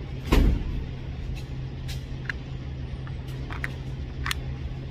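A single loud gunshot about a third of a second in, with a low boom, over a steady low hum at an indoor shooting range; several short sharp clicks follow.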